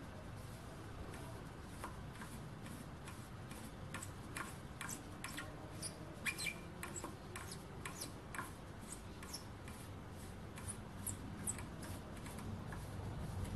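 Hand tapping a thread into brass: a small tap turned in a T-handle tap wrench, giving light, irregular clicks and ticks several times a second as the tap cuts and the wrench is worked.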